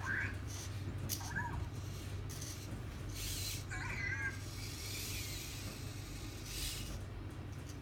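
Anki Cozmo toy robot making short chirpy electronic vocal sounds, three times: one rising at the start, one about a second and a half in, and a wavering one about four seconds in. Faint whirring of its tread motors comes and goes as it drives across the desk.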